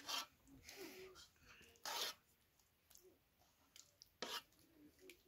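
A spoon beating thick, wet batter in an aluminium pot: three short wet scrapes about two seconds apart.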